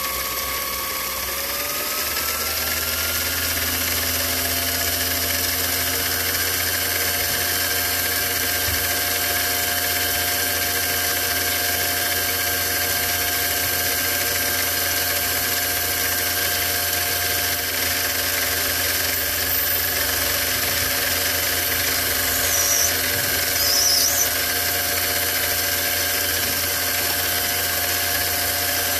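Metal lathe running, a steady whine with several held tones that rise in pitch about a second in as the spindle comes up to speed, then hold level. A few brief, higher scraping sounds come near the end.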